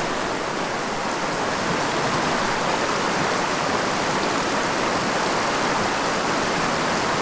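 Small mountain stream rushing over rocks in shallow riffles and little cascades: a steady, unbroken rush of water.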